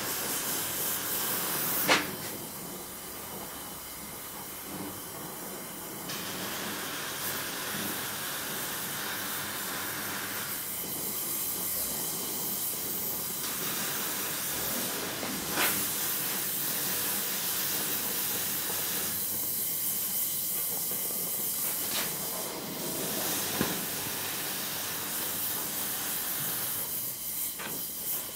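Oxy-fuel gas torch flame hissing steadily while it heats a small steel ring and a filler rod is fed to the glowing joint for brazing. A few sharp clicks cut through the hiss, the loudest about two seconds in.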